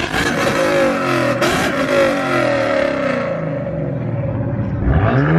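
Ford Mustang 5.0 V8 being revved hard: the engine pitch falls away over the first few seconds, then a quick rev rises sharply near the end.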